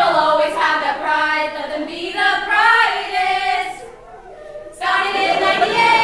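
Women's voices singing a song together without instrumental backing. The singing breaks off about four seconds in and then resumes over a murmur of crowd voices.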